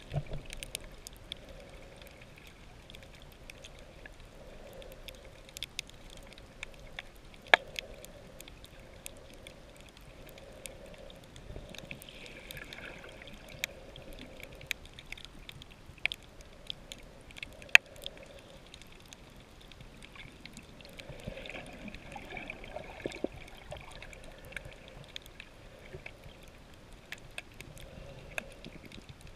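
Underwater sound over a shallow coral reef: a muffled, steady wash of water with sharp clicks scattered throughout, two of them much louder, about a quarter of the way in and just past halfway.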